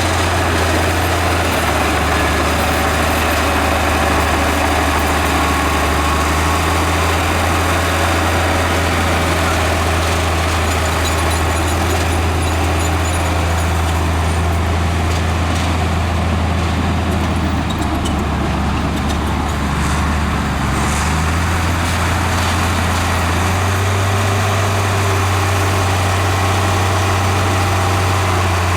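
Heavy diesel earthmoving machinery running steadily with a deep engine hum, its note stepping up and down a few times as the load changes.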